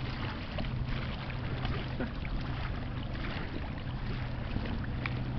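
Steady low drone of the pusher tug's diesel engines across the water, under a haze of wind noise.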